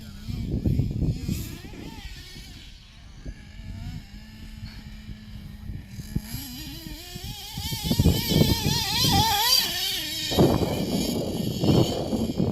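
Electric remote-control drag car's motor whining, rising steeply in pitch from about six seconds in as the car accelerates down the strip, then a rougher noise near the end.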